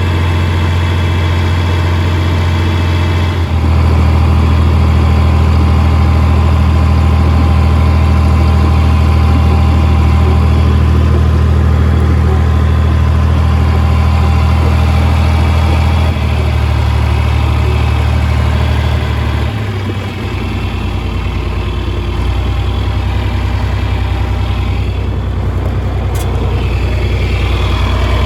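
A vehicle engine running steadily and close by. Its note steps up about three seconds in, then drops back in two steps later on.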